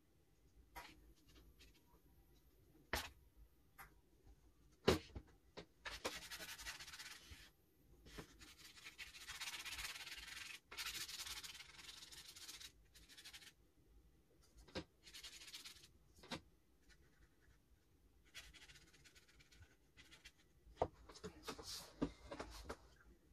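Watercolour brush rubbing in short scratchy strokes of one to several seconds, mixing paint on a palette plate and working on paper, with a few sharp taps in between.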